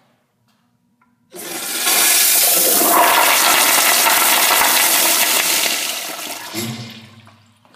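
Toilet flushing: a sudden loud rush of water starting about a second in, holding for about five seconds, then dying away near the end.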